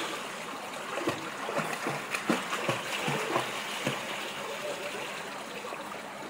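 Pool water splashing and churning as a toddler kicks and paddles, with many small plops of falling droplets, busiest in the first few seconds.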